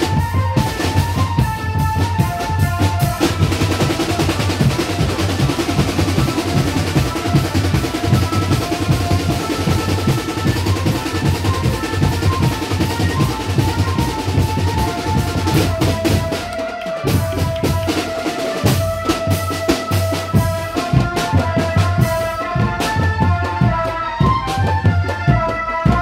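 Drum band playing: bass drums pound a steady beat under a melody line. From about three seconds in, the drumming turns dense and busy for a long stretch, and about sixteen seconds in the melody comes back over the beat.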